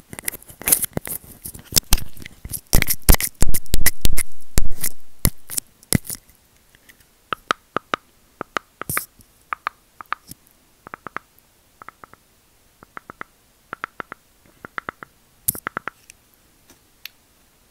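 Close-miked scratching and crackling of a small object worked in the fingers as an ASMR trigger: a dense, loud run for about the first six seconds, then sparse, crisp ticks and clicks.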